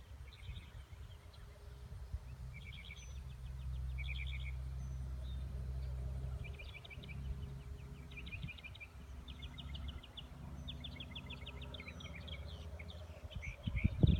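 A songbird singing repeated rapid trills in short phrases, over the low steady hum of a truck engine running that swells about a third of the way in and fades near the end.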